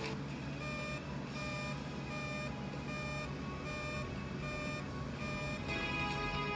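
Electronic alert beeps from a television's weather channel during a severe thunderstorm warning: short tones repeating in an alternating high-low pattern for about five seconds, after the background music has cut out. The music comes back near the end.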